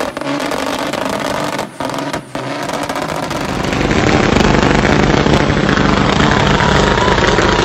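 Straight-piped, turbocharged Peterbilt diesel revving hard in a burnout, dropping off briefly twice. About three seconds in it gives way to a louder, rougher diesel rumble as the truck runs under heavy throttle.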